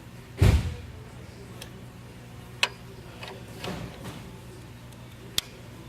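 Parts of a disassembled cam phaser being handled: a dull thump about half a second in, then a few light, sharp clicks and a brief rustle over a steady low hum.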